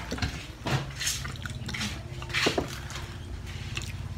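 Dishes and utensils clinking and tapping at a meal table: several short knocks over a steady low hum.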